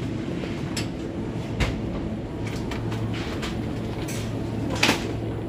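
Steady low hum of a supermarket's chilled display cabinets and ventilation, with a few faint knocks of handled packaging and one sharp click near the end.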